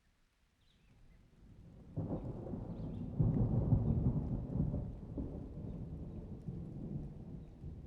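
A roll of thunder: a low rumble builds, rises sharply about two seconds in, is loudest a little after three seconds, and then rumbles away slowly.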